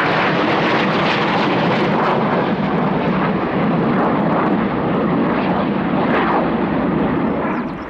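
Formation of BAE Hawk T1 jets flying by, their Rolls-Royce Turbomeca Adour turbofans giving a loud, steady jet noise that starts to fade near the end.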